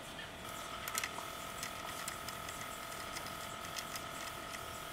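Small metallic clicks and taps of metal parts being handled at a motorcycle's front axle and brake caliper, the loudest about a second in, over a steady faint high hum that comes in about half a second in.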